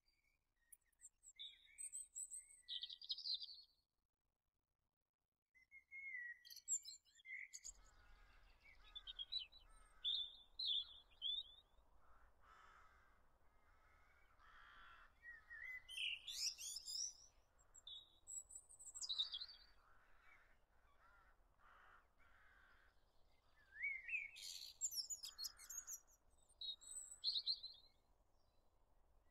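Small songbirds chirping and singing in quick high trills and whistled phrases, broken by a short silent gap about four seconds in. From about eight seconds a faint steady background hiss runs underneath.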